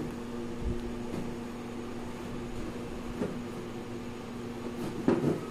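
A steady mechanical hum at one constant pitch, with a short knock about three seconds in and another near the end.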